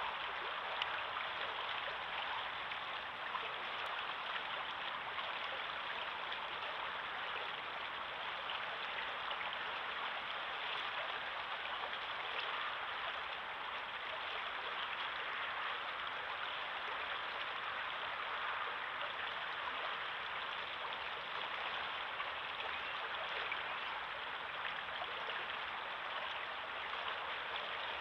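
River water flowing steadily past the bank, a continuous even rush of water.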